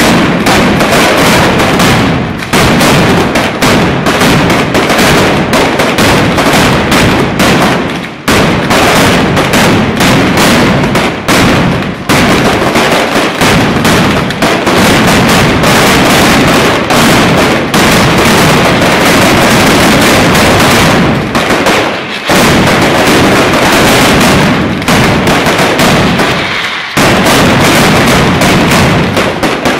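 Mascletà: a dense, continuous barrage of ground-level firecracker explosions going off in rapid succession, very loud, with a few brief let-ups partway through.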